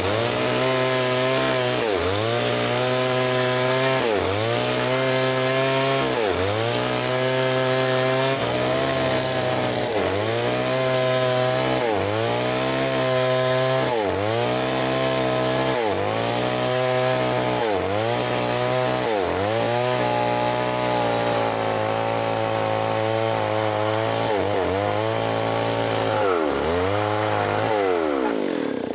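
Stihl MS 381 two-stroke chainsaw ripping a meranti log lengthwise at full throttle, the engine speed dipping under load and recovering about every second and a half. Near the end the throttle is let off and the engine drops toward idle.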